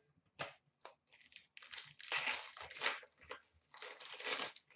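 Wrapper of a 2017-18 Upper Deck Series 1 hockey card pack being torn open and crinkled by hand: a run of crackly rustles, loudest in the middle.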